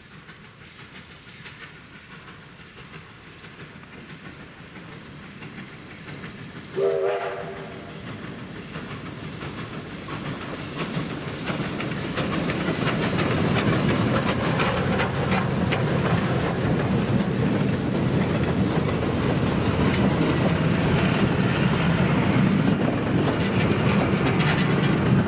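Victorian Railways J-class steam locomotive J549 sounds a short steam-whistle blast about seven seconds in, warning of a level crossing. Then the locomotive and its wooden carriages rumble and clatter over the rails, growing louder as the train passes close.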